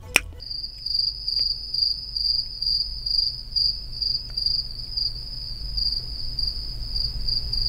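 A cricket chirping in a steady, rapidly pulsing high trill. A single sharp click comes just after the start.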